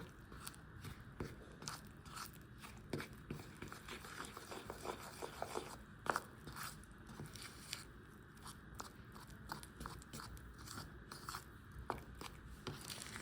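A spoon stirring a soft, creamy mixture in a bowl: faint, irregular small clicks and scrapes against the bowl.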